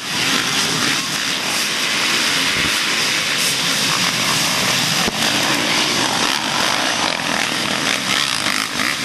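Off-road dirt bike engines running steadily at race pace.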